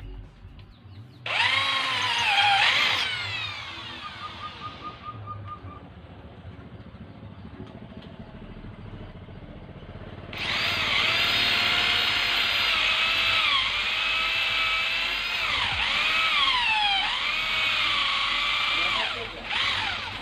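Electric drill with a 7 mm bit enlarging a hole, a step before re-tapping a stripped bolt thread. The motor whines in a short burst about a second in that winds down. It then runs again from about halfway for some nine seconds, its pitch dipping several times as the bit bites.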